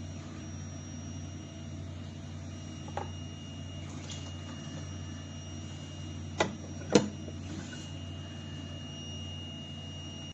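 De'Longhi Magnifica S automatic espresso machine running with a steady low hum, with a few sharp clicks, the loudest about seven seconds in.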